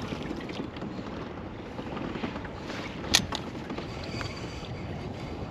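Steady wash of wind and small waves lapping against a kayak hull, with a single sharp click about three seconds in.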